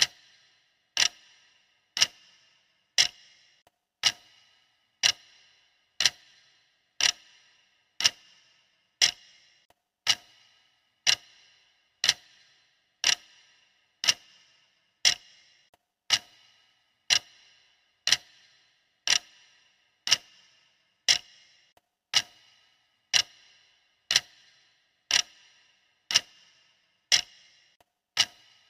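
Clock-tick sound effect of a countdown timer: sharp, short ticks at a steady one per second.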